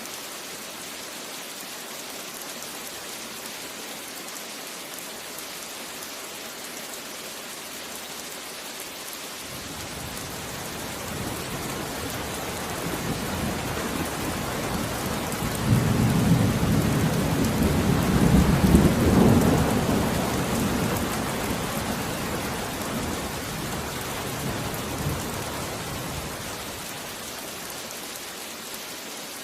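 Steady rain falling, with a long peal of rolling thunder that builds about a third of the way in, peaks loudest past the middle with a couple of sharper cracks, and rumbles away near the end.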